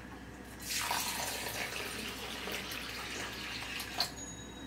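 Water poured from a steel mug into a bowl of red lentils to rinse them: a steady splashing pour starting about a second in and stopping near the end, with a light click as it stops.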